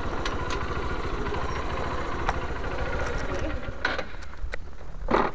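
Motorcycle engine running at low speed with a steady low pulsing and a few clicks, getting quieter about four seconds in, with a short louder noise near the end.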